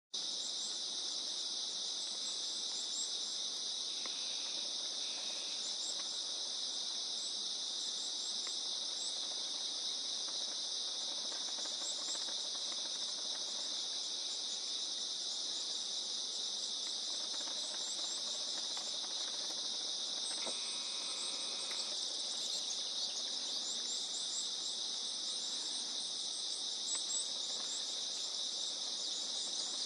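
A steady, dense, high-pitched insect chorus, with a couple of brief fainter tones around five and twenty-one seconds in.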